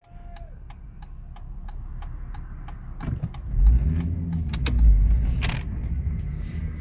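Volvo V70 2.4 five-cylinder car with a rhythmic clicking, about three clicks a second over the low engine rumble, which the owner puts down to the gearbox. About three seconds in the low rumble grows louder and the clicks become irregular.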